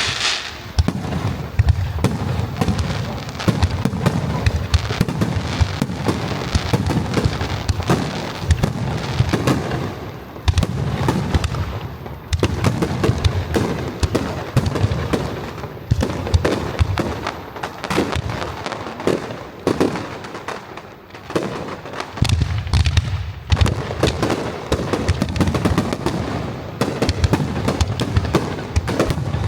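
Aerial fireworks going off in rapid, near-continuous volleys: deep booms mixed with sharp cracks and crackle. The barrage eases briefly a few times, around 10, 12 and 21 seconds in.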